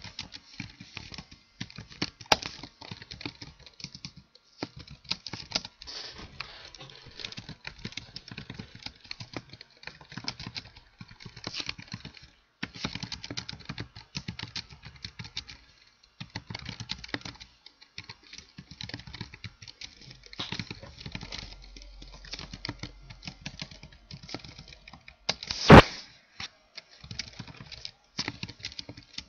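Typing on a computer keyboard: a fast, irregular run of key clicks with short pauses. About three-quarters of the way through there is one much louder knock.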